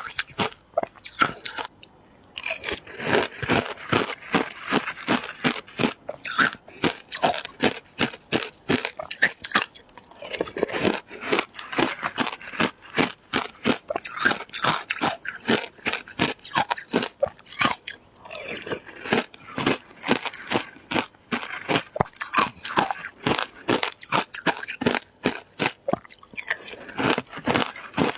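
Shaved ice being bitten and chewed close to the microphone: rapid, irregular crunching that runs on almost without a break, with a short pause about two seconds in.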